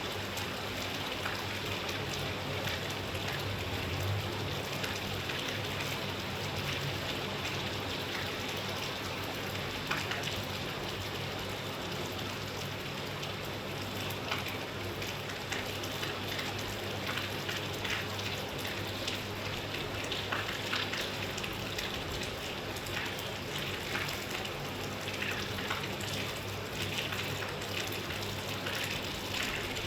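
Steady rain falling, an even hiss dotted with the ticks of drops striking a surface.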